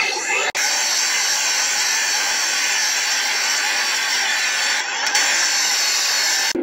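Electronically distorted logo audio turned into a dense, steady noise with no clear tune, starting after a brief cut about half a second in.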